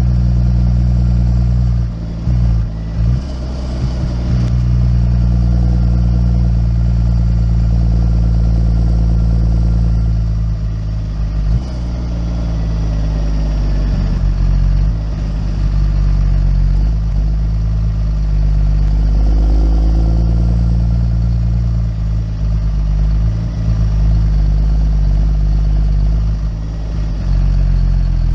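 Farm tractor's diesel engine running steadily while driving along a farm track, with brief dips in level a couple of seconds in and again near the end.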